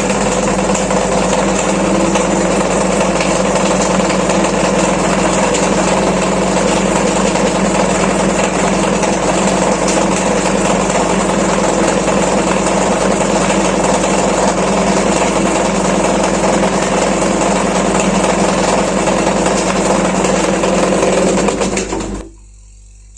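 Semi-automatic washing machine's spin-dryer tub running with a loud, steady generator-like drone, the abnormal noise of a fault in the spin section. It cuts off suddenly near the end.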